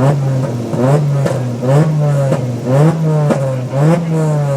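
Single-turbo Toyota Supra 2JZ inline-six revved in quick repeated throttle blips, the engine note rising sharply and dropping back about eight times.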